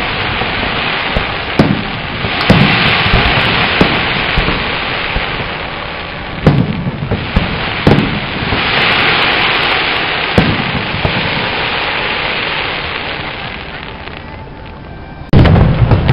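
Aerial fireworks shells bursting: a sharp bang every second or two over a continuous hissing crackle. A loud cluster of booms comes near the end.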